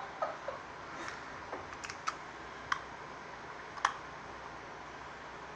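Light, irregular clicks and taps of small plastic toy accessories, a doll's cake pop and cup, being handled and fitted together, about eight in all with a sharper click about four seconds in.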